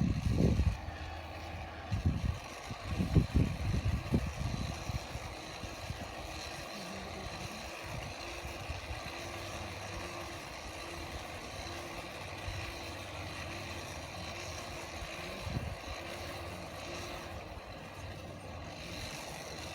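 A steady motor-like drone, with several loud low rumbles in the first four seconds.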